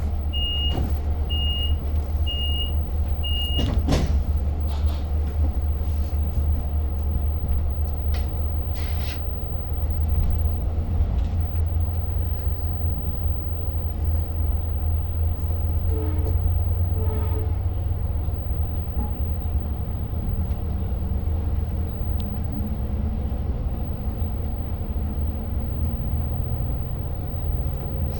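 Inside a Long Island Rail Road coach, the door warning chime beeps four times, about once a second, then stops. The doors shut with a sharp knock about four seconds in. The train's steady low rumble continues as it gets under way.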